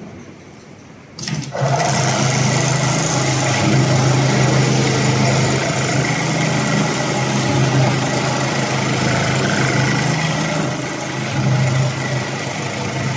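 A HighTex FIBC911-400H computerized pattern sewing machine starts up about a second in and runs steadily at high speed, stitching a lifting-loop strap onto a bulk bag.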